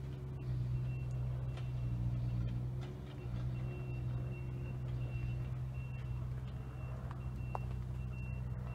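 A vehicle engine idling steadily, with a faint high-pitched electronic beep repeating about every two-thirds of a second from a few seconds in, like a reversing alarm.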